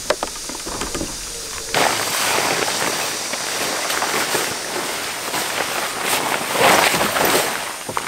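Large tent fabric rustling and flapping as it is dragged up and over the tent, loudest near the end. A couple of light clicks of a stretch-cord hook come at the very start.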